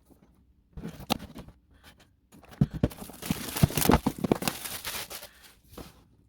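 Packaging being handled: crinkling and rustling with several light knocks, loudest from about two and a half to five and a half seconds in.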